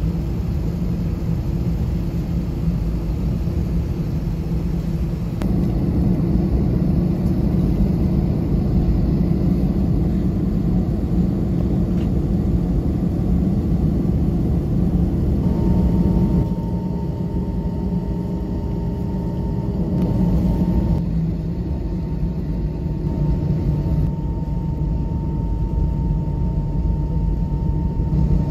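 Cabin noise of an Airbus A320-family airliner taxiing after landing: a steady low rumble of the jet engines and the wheels rolling. A faint steady whine joins about halfway through.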